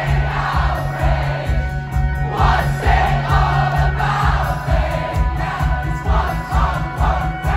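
Live band playing with a steady drum beat and bass, while a packed crowd sings along loudly.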